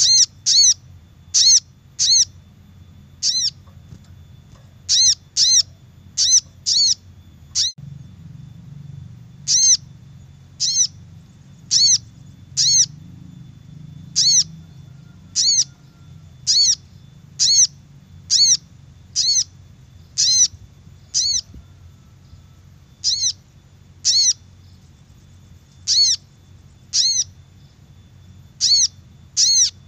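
Lure-call recording of a crimson sunbird (sogon) repeating short, high, sharp chirps, roughly one every half second to a second and sometimes in quick pairs, over a low steady hum.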